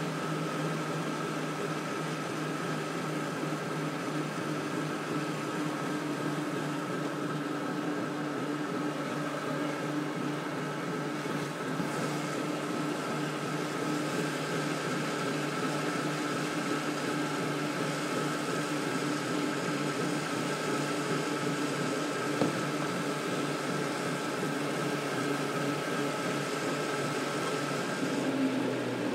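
Steady mechanical hum with a constant whine over an even rushing noise, pitch unchanging throughout; a single sharp knock about two-thirds of the way through.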